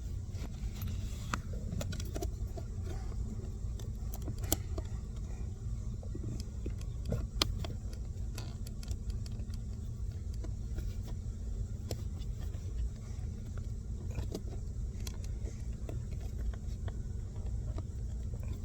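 Light, irregular clicks and taps of hand tools and metal fasteners as a blower motor is unbolted under a minivan's dashboard, with sharper knocks about four and a half and seven and a half seconds in, over a steady low rumble.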